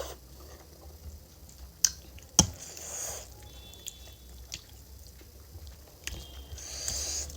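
A person eating spicy Korean instant noodles close to the microphone: quiet chewing, with two short slurps and two sharp clicks about half a second apart a couple of seconds in.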